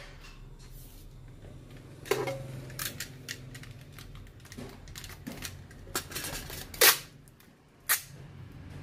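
Clear adhesive tape being laid and pressed onto a cracked phone screen's glass, with a red hand tool drawn over it: a series of scratchy rasps and sharp clicks. The loudest snaps come about seven and eight seconds in.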